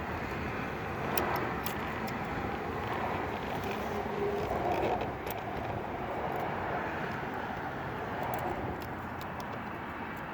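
Steady outdoor background noise with a few faint, sharp clicks and rustles of hands working a throttle cable into place.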